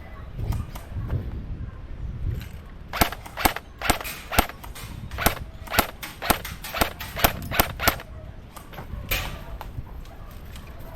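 Airsoft guns firing single shots: about a dozen sharp, irregular pops from about three seconds in, with one more near nine seconds.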